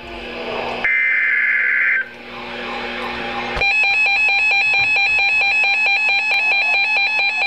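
Emergency Alert System broadcast: a one-second screech of digital data tones (the SAME header), a moment of hiss, then about three and a half seconds in a loud electronic attention tone starts, pulsing rapidly and evenly. It signals an incoming emergency alert.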